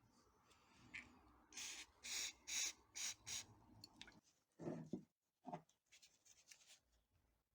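A quick run of about six short scraping sounds, then two soft knocks: small hand work on parts.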